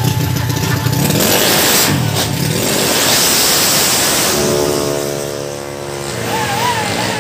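Racing scooter engines revving hard and accelerating, the pitch swinging up and down. Near the end a steady engine tone holds, and music with a wavering melody comes in.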